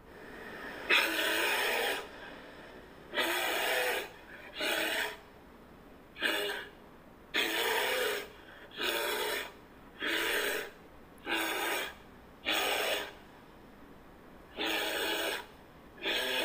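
Bear giving a string of harsh, breathy huffs and grunts, each about half a second to a second long, coming roughly once a second.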